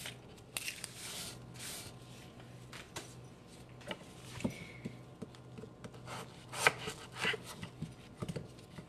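Knife peeling and cutting a small onion on a wooden cutting board: soft rustling and scraping of the skin, with scattered taps of the blade on the board.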